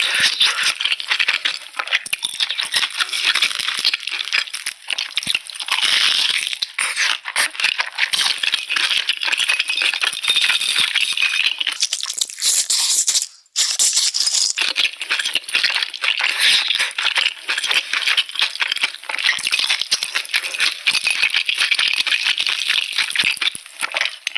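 Dense, crisp crackling from a potato-crusted corndog close to the microphone, breaking off briefly about halfway through.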